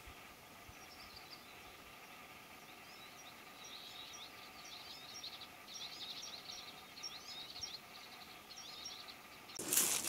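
A small songbird singing faint, repeated high chirping phrases over quiet forest ambience. Near the end a sudden loud rustling of handling noise.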